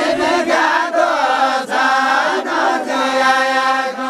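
A group of voices singing a Deuda song together in unison, the traditional call-and-response chant of Nepal's far west, with no instruments. The line bends through short phrases and then holds long steady notes.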